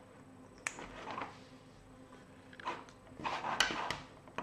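Cables and connectors being handled and plugged in on a workbench, likely the VESC6 speed controller's leads going in: a sharp click under a second in, then scattered light clicks and rustling, busiest near the end.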